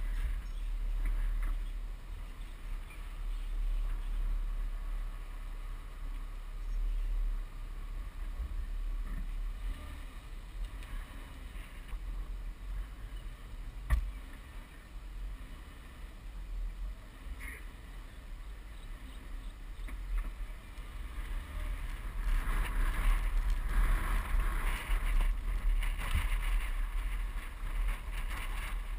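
Low rumble of a car picked up by a camera mounted on its hood, with wind buffeting the microphone. A single sharp click sounds about halfway. The noise grows louder and rougher about three-quarters of the way in as the car drives off.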